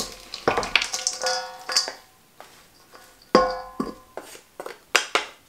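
Wooden salad servers knocking against a stainless steel mixing bowl as a kale salad is tossed. The bowl rings briefly after each of several knocks.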